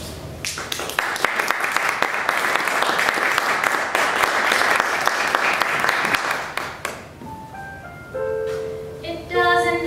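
Audience applauding for about six seconds, then fading out. After that, an instrument plays a short line of single held notes.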